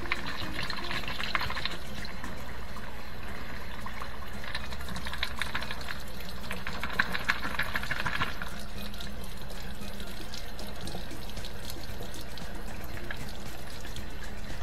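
Water running from a tap and splashing in two spells, about two seconds at the start and again from about four and a half to eight seconds in, with small clicks of handling, over a steady low hum.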